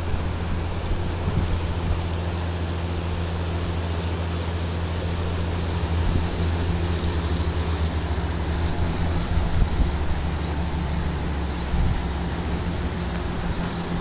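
Steady rush of a shallow river flowing over rocks and a small weir, with a constant low rumble underneath.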